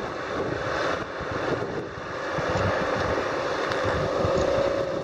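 A boat engine running on the river, a steady drone that comes in and grows a little louder from about two seconds in, with wind buffeting the microphone.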